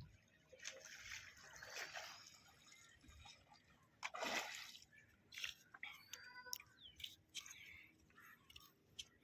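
Water splashing and sloshing at the surface of the sea, with one louder splash about four seconds in.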